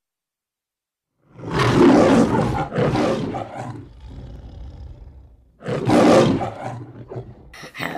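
The Metro-Goldwyn-Mayer logo's lion roar: a lion roaring loudly twice, the first roar about a second in and the second a few seconds later.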